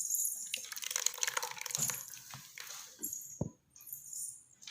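Mango juice being poured into a bowl of mango pulp and mixed in: an irregular wet trickling and sloshing with small clicks and scrapes.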